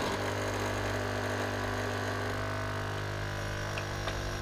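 Philips pod coffee machine's pump starting abruptly and running with a steady hum as it brews.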